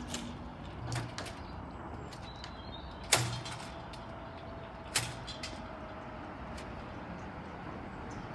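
Level crossing barrier mechanism as the booms rise to upright: three mechanical clunks, about a second in, about three seconds in (the loudest) and about five seconds in, over steady background noise.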